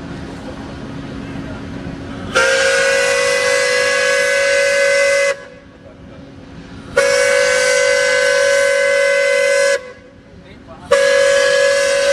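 A lake steamship's steam whistle blowing three long blasts, each a steady pitched tone. The third blast cuts off short.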